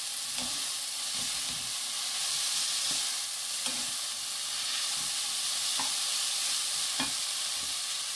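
Shredded bellflower root sizzling in a hot nonstick frying pan while being tossed with two wooden spatulas. A steady frying hiss, with a few light knocks of the wooden spatulas against the pan.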